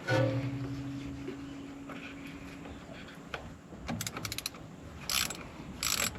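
A sudden metallic clang that rings for a couple of seconds and fades, then a ratchet wrench clicking in short quick strokes from about four seconds in.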